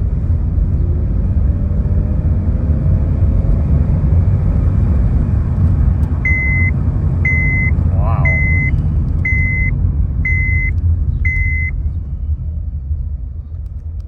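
Driving noise of a 2007 Honda Civic Hybrid: a steady low rumble from the engine and road, which eases off near the end. Midway, six evenly spaced electronic beeps sound about a second apart.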